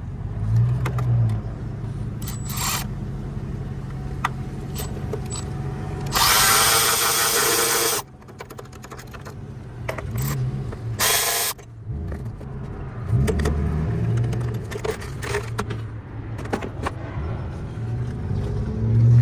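Milwaukee 12-volt cordless speed ratchet with a 5 mm Allen bit spinning out engine cover bolts in short runs. The longest run lasts about two seconds, starting about six seconds in, and a shorter one comes near eleven seconds in, with clicks and knocks of handling in between.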